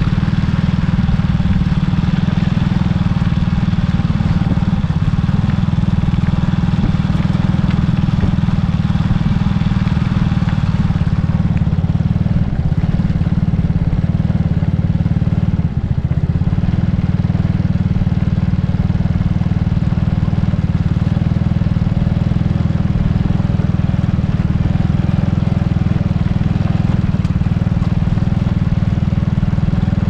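A vehicle driving steadily, a constant loud low engine and road rumble, with two brief dips about halfway through.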